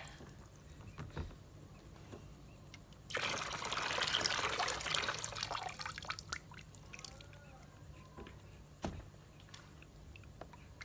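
Water being poured for about three seconds, starting about three seconds in, with scattered drips and small splashes around it.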